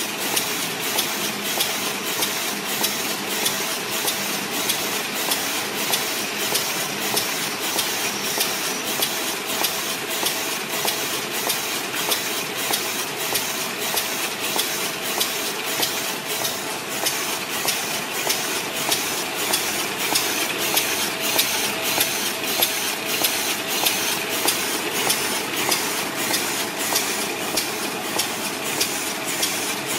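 Fully automatic small paper bag making machine running, its mechanism clacking evenly about twice a second over a steady hum and hiss.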